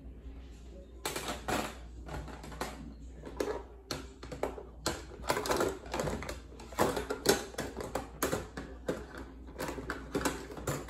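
Irregular clicks, taps and rustles of objects being handled close to the microphone, starting about a second in.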